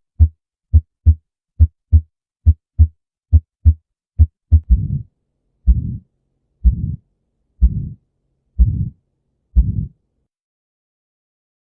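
Recorded heart sounds heard through a stethoscope. First a steady lub-dub of paired short thumps at a little more than one beat a second. From about four and a half seconds in comes a slower beat, about one a second, where each thump is followed by half a second of whooshing: a systolic heart murmur. It stops nearly two seconds before the end.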